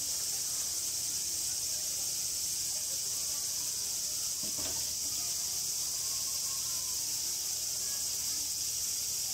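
Steady high-pitched insect chorus shrilling without a break.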